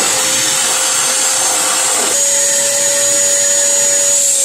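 Shop vac running as it sucks coolant out of a car's radiator and engine: a steady motor noise with a high whine, its pitch stepping up slightly about two seconds in.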